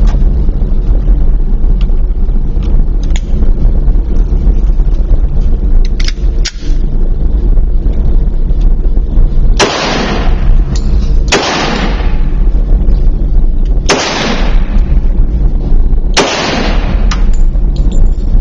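HK Mark 23 .45 ACP pistol fired four times, slow single shots about two seconds apart starting around halfway in, each ringing out briefly. A loud steady low rumble runs underneath.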